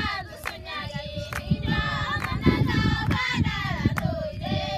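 A group of women singing together, with hand claps marking the beat.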